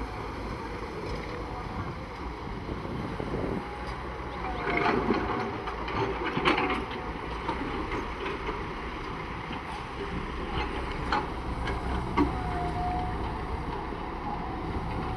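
Heavy machine engine running steadily, with scattered knocks and clanks, loudest about five to seven seconds in.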